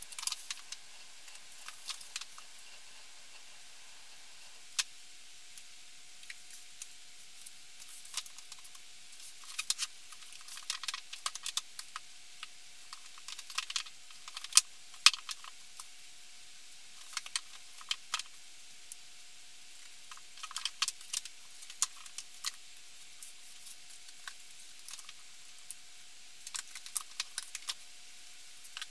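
Books being handled and set on a wooden shelf: irregular clusters of quick, light clicks and knocks, with a few sharper knocks, over a faint steady hiss and a thin steady tone.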